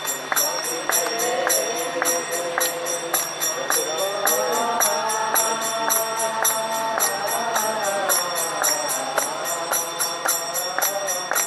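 Devotional music: a singing voice carries a melody over a steady beat of ringing metal percussion.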